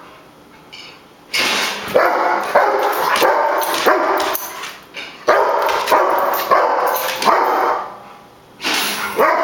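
A dog barking in rapid, continuous runs: after a quiet first second, two stretches of about three seconds each with a short pause between, and the barking starts again near the end.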